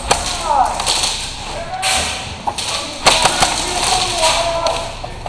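Airsoft guns firing, with BBs striking hard surfaces: scattered sharp snaps and cracks, including a quick pair about three seconds in. Distant voices shout in between, and the snaps echo.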